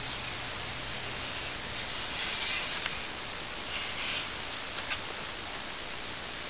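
Machete blade drawn across a sharpening stone, honing the edge: three short scraping strokes over a steady background hiss.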